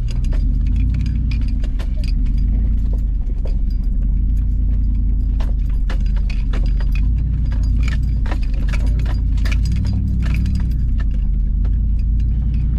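Cab interior of a 2006 Nissan Armada crawling over a rough dirt trail: its 5.6-litre V8 runs with a steady low rumble, and frequent jingling rattles and clicks come from loose items and trim jostled by the bumps.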